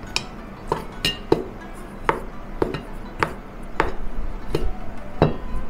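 A metal spoon clinking against a stainless steel bowl while chicken pieces are tossed in flour: about ten sharp, lightly ringing clinks, roughly two a second.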